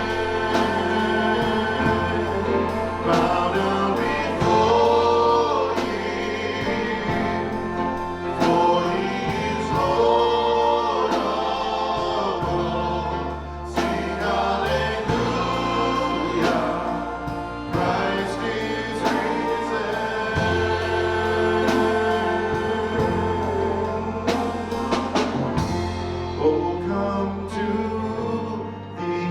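Worship song with a choir of voices singing over a band, with sustained bass and a steady beat.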